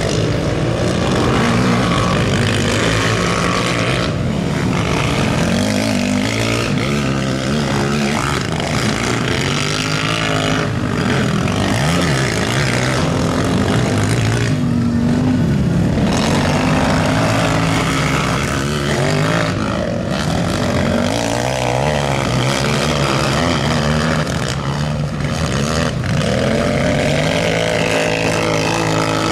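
Several racing quads (over 450 cc) running on a dirt track, their engines revving up and down as they accelerate and back off, overlapping one another.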